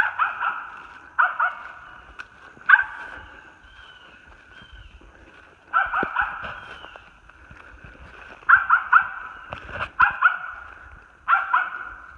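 An animal giving short barking calls in quick clusters of two to four, repeated every few seconds.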